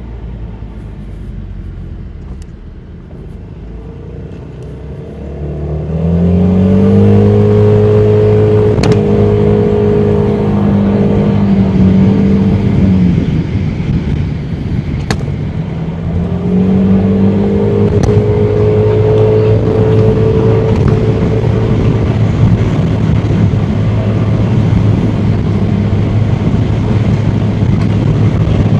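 Honda Forza 300 scooter's single-cylinder engine pulling away and rising in pitch about six seconds in, holding a steady note, easing off and pulling up again about halfway, then settling into a steady drone of engine and road noise. A few sharp clicks sound along the way.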